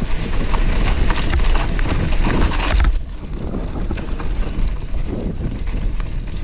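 Mountain bike descending a rough dirt singletrack: wind buffeting the action camera's microphone, tyres running over dirt and loose stones, and sharp clicks and rattles from the bike. The wind noise drops suddenly about three seconds in.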